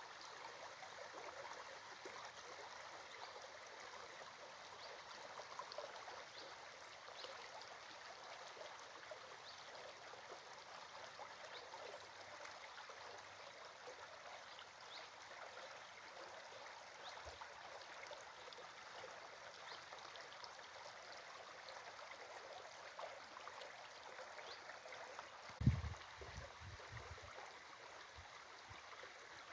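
A small stream running and babbling steadily. A short low thump comes near the end.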